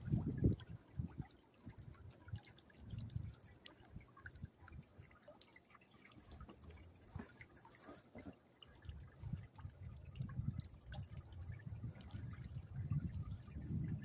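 Water trickling and dripping from a natural stone bird bath fountain, falling off its stone slab tiers into the rock-filled basin, with scattered drip clicks. Low rumbles swell near the start and again toward the end.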